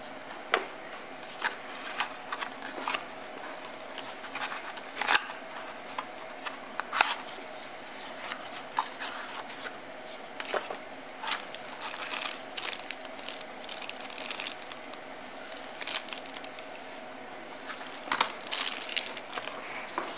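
Cardboard and paper packaging being handled: a phone box's cardboard insert and paper pieces rustling, scraping and tapping in a string of short crinkles and clicks.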